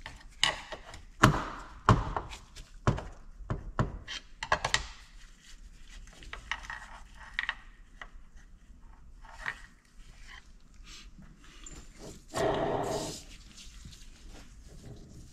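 Metal parts of a seized Detroit DW-LS diesel governor being knocked and worked by hand while trying to get its bad bearings apart: a quick run of sharp knocks over the first five seconds, then lighter clinks and handling, and a short harsh rasp near the end.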